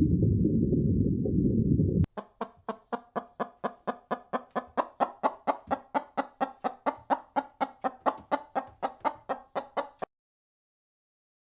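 Chicken clucking in a fast, steady run of short calls, about four a second, that stops abruptly. Before it, for about two seconds, a low rumbling noise.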